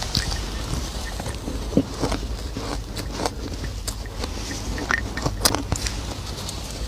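Ice being bitten and chewed up close: a run of irregular crunching and crackling bites, with a few sharper, louder crunches among them.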